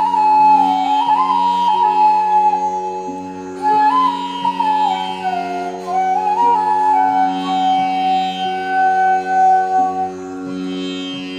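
Indian classical-style instrumental music: a flute melody sliding between notes over a steady drone, with a long held note near the end.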